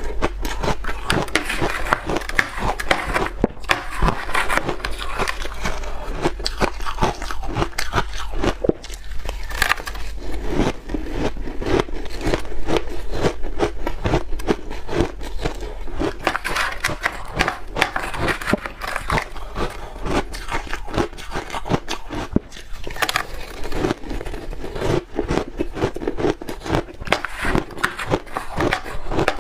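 Red ice being bitten and chewed close to the microphone: dense, continuous crunching and crackling with no pauses.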